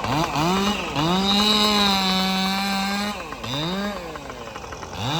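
Ported Jonsered 2165 two-stroke chainsaw revving in quick throttle blips, then held at full throttle for about two seconds with the pitch sagging slightly, before dropping back and blipping again near the end.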